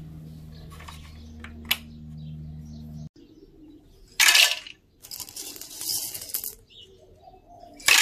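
The toy cement mixer's small electric motor hums steadily and stops about three seconds in. Then come loud rattling clatters at the plastic mixer drum and hopper, one about four seconds in and another at the end, with lighter rattling between.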